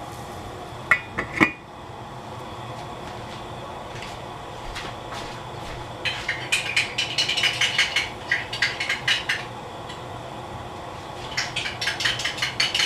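A stainless steel lid clinks twice as it is set onto a saucepan of soup, about a second in. Later come two stretches of quick, irregular light ticking from the covered pan heating toward the boil.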